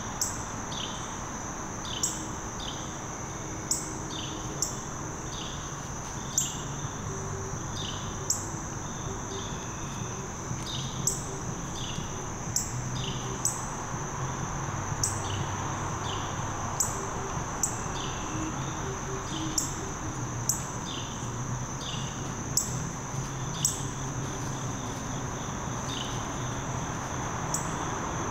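Woodland insect chorus: crickets keep up a steady high-pitched drone, while a sharp, high chip repeats every second or two.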